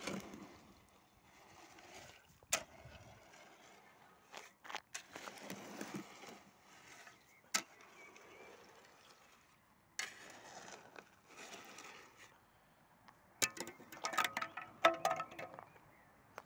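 A shovel scraping and pushing wet concrete and gravel in separate strokes, with a few sharp knocks of the blade, the busiest spell near the end.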